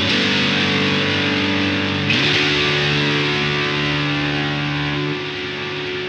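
Electric guitar played through a Southampton Pedals Indie Dream with its fuzzy drive section on. Two chords are struck about two seconds apart, the second sliding into pitch, and each is left to ring; the second fades down near the end.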